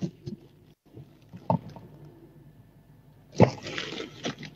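Hands working a small piece of modelling paste close to the microphone: a few faint clicks and rustles, with a louder rustle lasting about a second from about three and a half seconds in.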